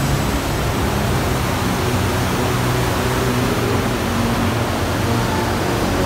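Steady, even rush of an underground waterfall inside a cave.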